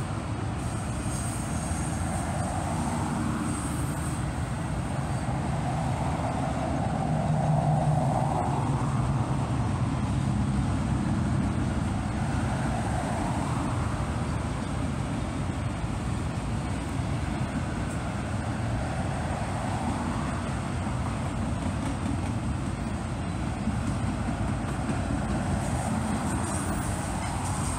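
Long auto rack freight train rolling past: a steady rumble and hiss of steel wheels on rail that swells and eases every few seconds, loudest about eight seconds in.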